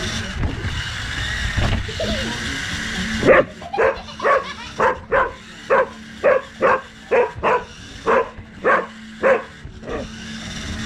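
A dog barking repeatedly at a remote-control car: about a dozen short, sharp barks, roughly two a second, starting about three seconds in after a few seconds of steady running noise.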